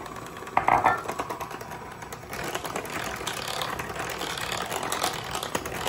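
Electric hand mixer running, its twin beaters churning through cake batter with flour in a mixing bowl and making a dense, fast rattle.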